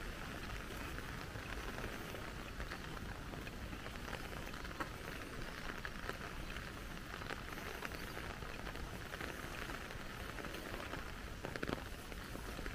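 Water drops pattering steadily over an even hiss, with a few sharper taps about eleven seconds in.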